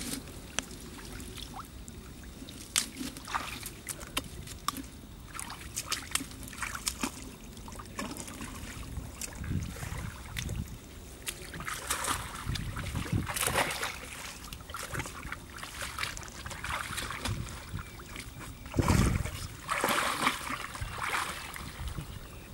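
Splashing and sloshing in shallow muddy water as hands tear out weeds and mud around a coconut-trunk log and the log is shifted. Heavier splashes come about halfway through and again near the end as the boys wade in.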